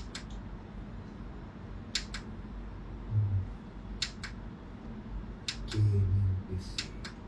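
Sharp clicks, mostly in quick pairs, every second or two, with two short low hums about three and six seconds in.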